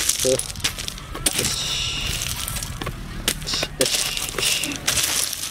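Gravel crunching and clinking as a baby elephant's trunk and feet shift over loose stones, with a couple of brief low voice-like sounds.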